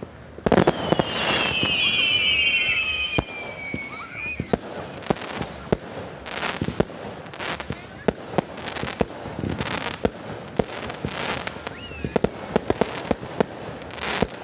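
Fireworks going off: many sharp bangs and cracks. About a second in, a whistling firework gives a falling whistle lasting a couple of seconds.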